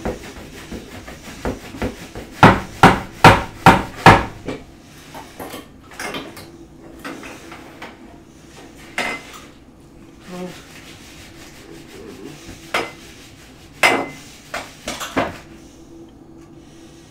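Kitchen dishes and cookware being handled on the counter: a quick run of five sharp knocks about two seconds in, then scattered clinks and a few more knocks in the second half.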